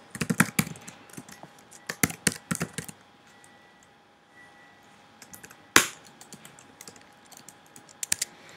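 Typing on a computer keyboard in irregular bursts of keystrokes, with one louder key hit about two-thirds of the way through.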